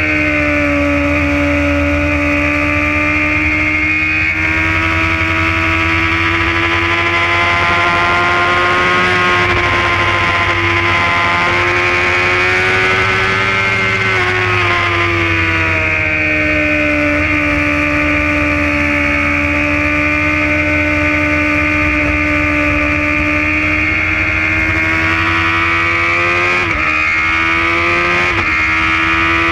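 Motorcycle engine at high revs heard from an onboard camera at speed around a race track, its pitch rising and falling slowly as the throttle changes, with two brief sharp dips in pitch near the end. A low rushing noise of wind on the microphone runs under it.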